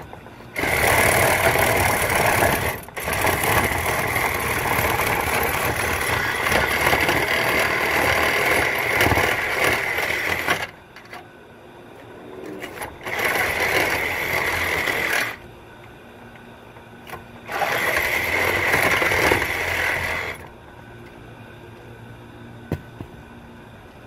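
Cordless reciprocating saw cutting through an air-conditioning condenser coil, in three runs: one of about ten seconds, then two shorter ones of two to three seconds each.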